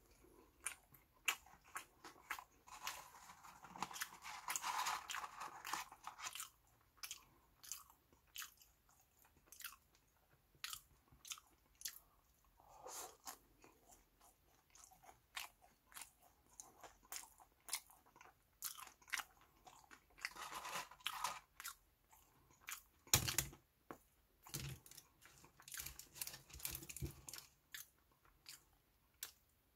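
Close-miked chewing of Lotteria French fries, with many small crisp crunches and mouth sounds. There is one louder knock about three quarters of the way through.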